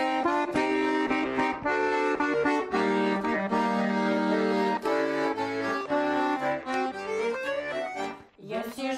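Accordion playing the instrumental introduction of a Russian folk song: sustained chords with a melody over them, easing off briefly near the end just before the singing comes in.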